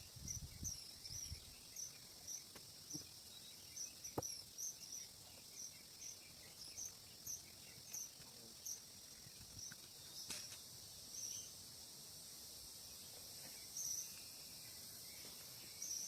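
Forest ambience: a steady high insect drone, with a short high chirp repeating about twice a second. A low thump in the first second and a few faint knocks.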